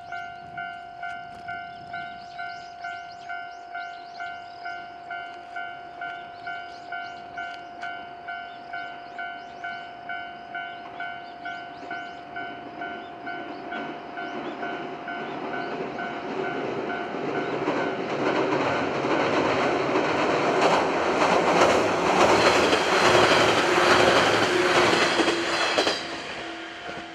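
A level-crossing alarm rings in an even ding-ding, a little under two strokes a second. From about halfway, a JR West 117 series electric train's wheel-on-rail noise builds over it, growing loud with a clatter of strokes as the train runs onto the river bridge, then drops away sharply near the end.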